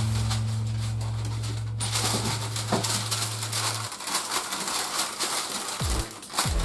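Crinkling and rustling of baking paper being pulled off its roll and handled, with a few sharp crackles near the end. A low held background-music note fades out about four seconds in.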